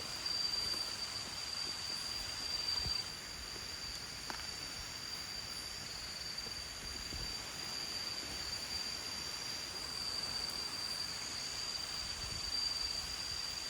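Rainforest insects trilling in a continuous high-pitched chorus, one steady tone holding throughout.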